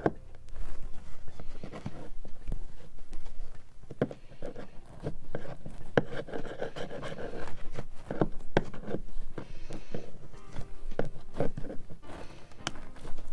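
Steel chisel scraping and prying old black carpet padding off a hardwood floor: irregular scrapes and sharp knocks of the blade against the wood, with the pad peeling up.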